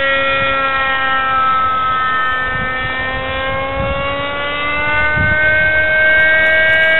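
Fuel-burning engine of a radio-controlled model airplane in flight: a steady high-pitched buzz whose pitch sags a little in the middle and climbs again over the last couple of seconds, with a few low thumps.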